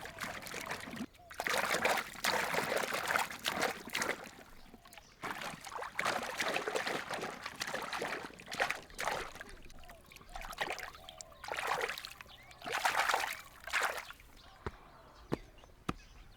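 Water splashing and sloshing in irregular bursts of a second or two, with a few light sharp knocks near the end.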